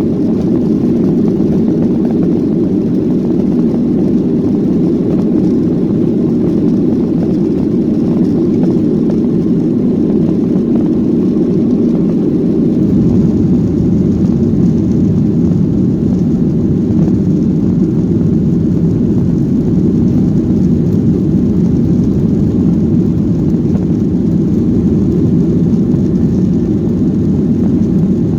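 Steady roar of a jet airliner's engines and airflow heard inside the passenger cabin, the deep rumble growing slightly fuller and louder about halfway through.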